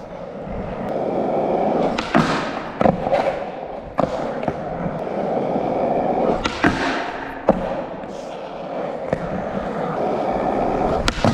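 Skateboard wheels rolling on concrete, the rolling noise swelling and fading, with several sharp clacks of the board: tail pops and the board slapping down, as in a nose slide attempt and landing.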